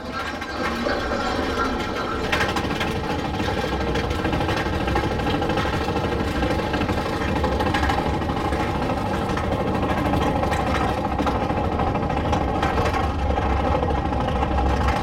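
Big Thunder Mountain Railroad mine-train coaster climbing a chain lift hill: a steady mechanical clatter and hum from the lift chain and the train running on the track.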